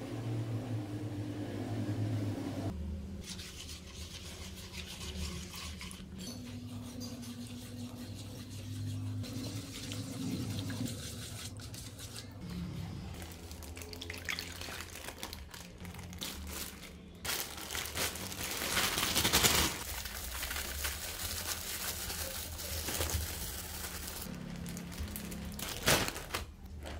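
Clear plastic bag crinkling and rustling as a creamy liquid mixture is poured into it from a wooden bowl and the bag is handled. The rustling is loudest about two-thirds of the way through.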